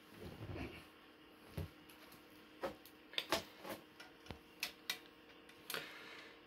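Faint, irregular light clicks and taps as a coaxial cable with metal connectors is handled and uncoiled over a metal antenna frame.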